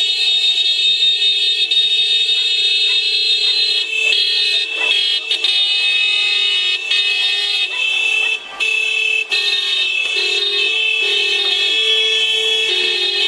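Several car horns held down together in long, continuous honking, with a brief break about eight and a half seconds in and the lower horn note shifting near the end: a wedding convoy announcing its arrival.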